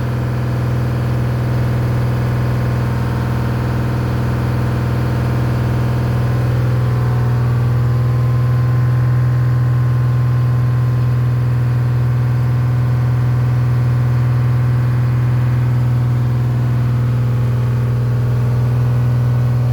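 Detroit Diesel 6-71 two-stroke inline-six diesel idling steadily, growing slightly louder about seven seconds in.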